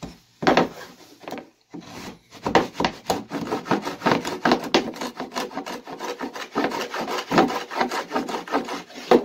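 Stanley No. 71½ router plane cutting a stopped dado: its iron scraping and shaving wood in quick repeated back-and-forth strokes. One stroke comes about half a second in, then after a short pause the strokes follow one another rapidly.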